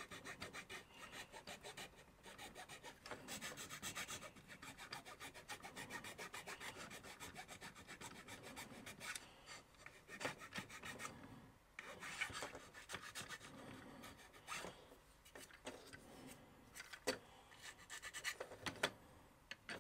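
Round needle file rasping back and forth on a plastic toy axle post built up with super glue and baking soda, shaping it round: quick, light, repeated strokes. The strokes break off briefly about eleven seconds in, and a few sharper clicks come near the end.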